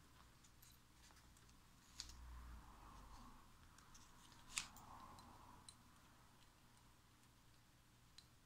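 Near silence broken by a few short clicks of small metal parts as the Anycubic Photon resin printer's build plate is taken apart by hand, its top screws being removed; the sharpest click comes about halfway through.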